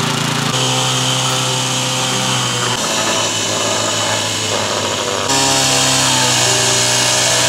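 Small petrol engines on concrete finishing machines, a vibrating screed and a power trowel, running steadily over wet concrete. The engine pitch and loudness change abruptly about half a second, three seconds and five seconds in.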